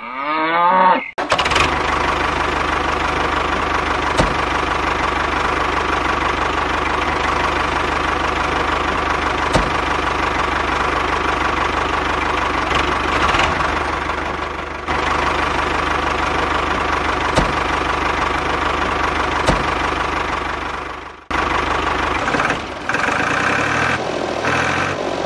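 Tractor engine running steadily with a knocking chug, matching a toy mini tractor pulling a cultivator and a loaded trolley. It breaks off briefly about 21 seconds in, then runs on. A quick rising swoosh plays in the first second.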